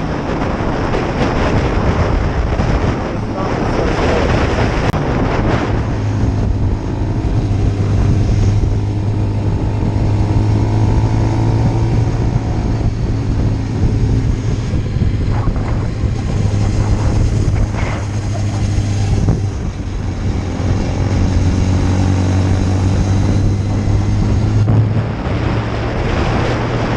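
Wind buffeting the microphone during a road ride, over a motorcycle engine's steady low drone. The wind is heaviest in the first few seconds, then the engine note comes through more clearly, shifting slightly in pitch now and then.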